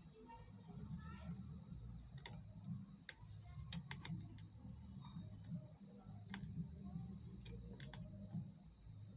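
Light, scattered clicks of small parts and tools being handled while replacement 4560 op-amp chips are fitted into IC sockets on a circuit board, over a steady high-pitched hiss.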